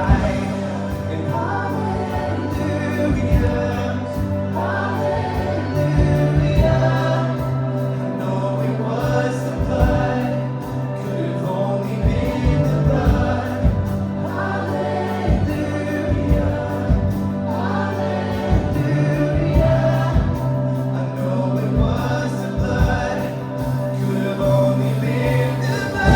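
Live worship band playing with voices singing together: held bass notes under the melody, with steady drum hits.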